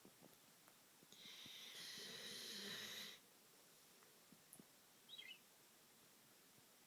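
Belgian Malinois snoring in its sleep: one long snore lasting about two seconds, starting about a second in. A brief faint high squeak follows a couple of seconds later.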